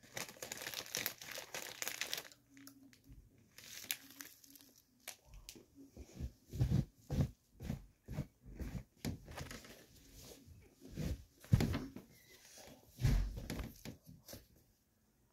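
Clothing rustling as it is handled and pulled from a dresser drawer, with many irregular soft thumps and knocks close to the microphone.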